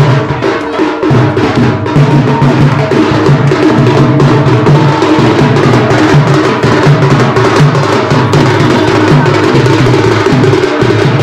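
Loud music led by drums, with dense drum strikes in a steady beat over a held melody.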